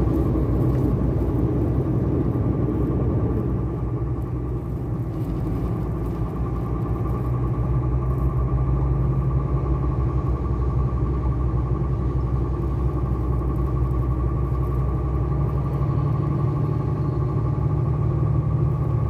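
Truck engine and road noise, a steady low drone heard from inside the cab while driving, easing off briefly a few seconds in.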